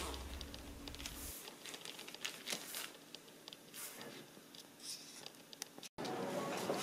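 Faint crinkling and small clicks of a plastic Ziploc zipper bag being pressed shut and handled. Near the end the sound cuts off abruptly into a steady low hum.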